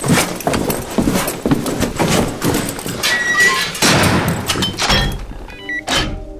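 A rapid, irregular run of knocks, thuds and clatter, ending with a whoosh near the end.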